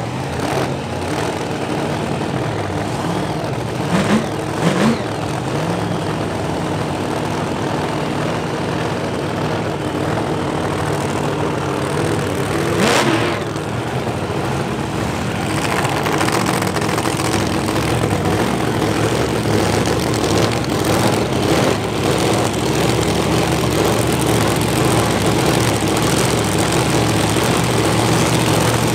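A funny car's engine idling steadily, growing louder from about halfway through as the car nears the starting line.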